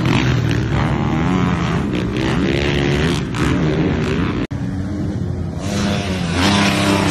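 Dirt bike engines revving, their pitch rising and falling as the throttle opens and closes. About four and a half seconds in the sound breaks off and another bike's engine takes over, running with a noisy rush near the end.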